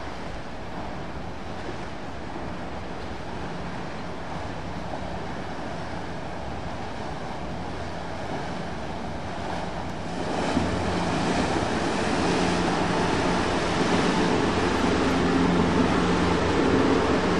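Rough wake water churning and splashing, with the hum of a Stingray runabout's Mercury engine that grows louder about ten seconds in as the boat comes close.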